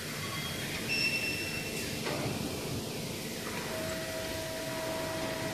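Hydraulic pump of a CNC press brake running with a steady hum. There is a short high beep about a second in, a click near two seconds, and a steady whine that starts past the middle.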